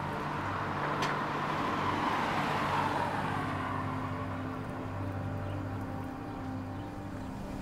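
A car passing by, its road noise swelling to a peak about two to three seconds in and then fading, over low held notes of background music.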